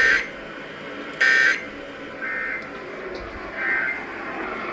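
EAS/SAME digital data bursts from a NOAA Weather Radio broadcast: short, harsh two-tone buzzes about a second apart, the two later ones fainter. Coming right after the warning text, this is the end-of-message code that closes the alert.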